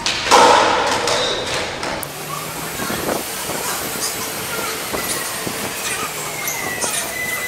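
Skateboard on the concrete floor of a car park: a loud clatter about a third of a second in, then wheels rolling with a few sharp clacks and a thin high squeal near the end.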